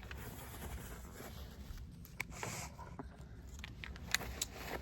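Faint handling noises: scattered light clicks and taps, with a brief rustle about halfway through, over a low room hum.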